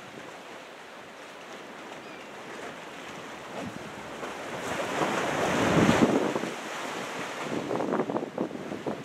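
Ocean surf, swelled by an approaching typhoon: a wave breaks and washes in, building to a peak about two-thirds of the way through and then easing off, with wind gusting on the microphone.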